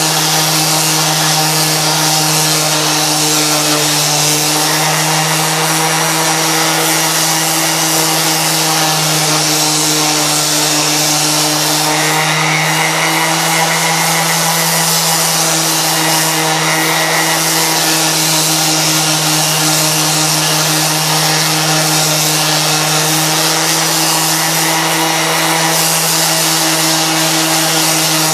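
Dexter Power 230 W random orbital sander running steadily as it sands a log with an 80-grit disc: an even motor hum under the hiss of the abrasive on the wood.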